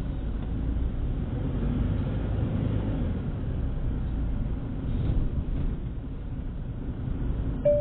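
Low, steady rumble of a car's engine and tyres heard from inside the cabin while driving slowly, with a short beep near the end.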